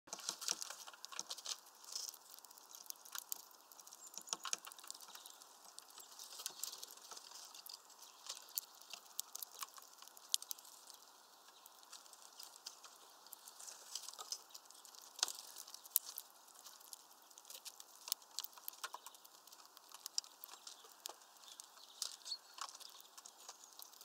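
Small finches pecking and cracking sunflower seeds in a feeder tray: a steady run of irregular sharp clicks and ticks, several a second, over a faint hiss.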